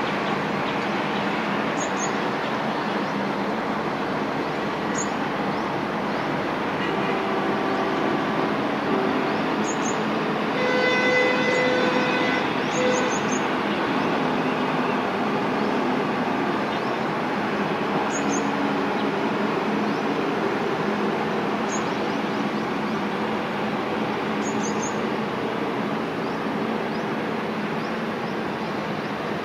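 Pair of ALCO-design WDM-3A diesel locomotives approaching under a steady engine rumble. Their horn sounds for about two seconds near the middle, then gives a short toot. Short high bird chirps come every few seconds.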